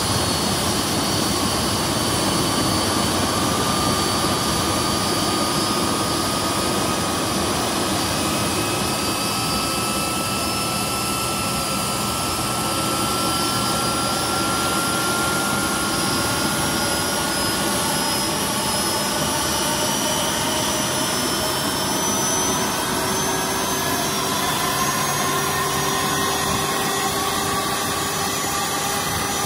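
Pratt & Whitney PW4060 turbofan engine running steadily on the ground in an engine run after an engine change. It is a steady rush of jet noise with faint whining tones that drift slowly up and down in pitch.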